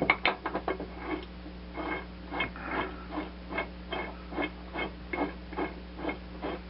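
A few sharp metal clinks, then a ratchet wrench clicking in an even rhythm of about two to three clicks a second as a mower blade's shoulder bolt is run into the spindle.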